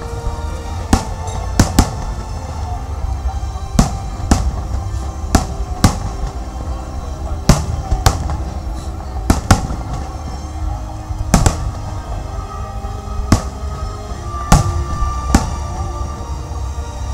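Aerial fireworks bursting overhead: a string of sharp bangs at irregular intervals, sometimes two within a fraction of a second, over a steady low rumble. Music plays underneath.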